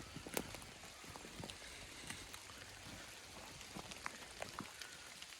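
Faint forest ambience: a low steady hiss with scattered, irregular light ticks and taps, the sharpest one just after the start.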